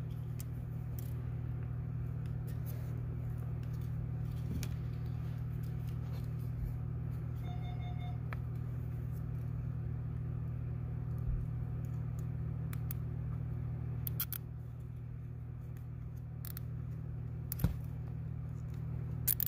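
Steady low hum in a truck cab, with scattered light clicks and rustles of hands handling amplifier wiring and a zip tie. A short electronic beep sounds about eight seconds in.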